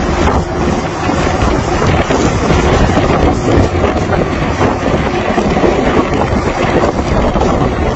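Strong storm wind buffeting the microphone, a loud steady rush, over the running of a boat underway in heavy seas.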